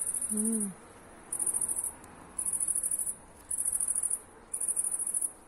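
A cricket singing in very high-pitched buzzing trills, each about half to three-quarters of a second long, repeated about once a second. A brief low voice-like hum comes near the start.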